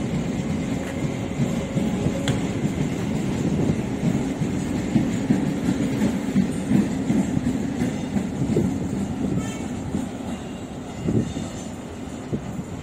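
Passenger coaches of the Howrah–SMVB express train rolling past with a steady rumble and the clickety-clack of wheels over the rail joints. The sound fades somewhat near the end.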